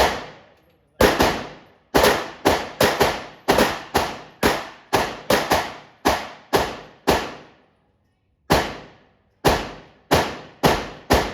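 A 9mm semi-automatic pistol fired in a steady string of about twenty shots, roughly two a second, each crack ringing out briefly, with a short pause partway through before the last few shots.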